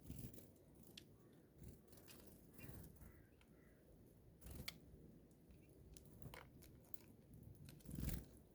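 Faint, scattered clicks and taps of birds pecking and cracking seed at a feeder, with one louder knock near the end.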